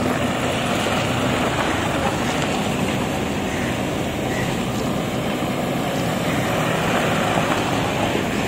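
Steady rushing outdoor noise with no distinct events, of the kind made by wind or an engine running.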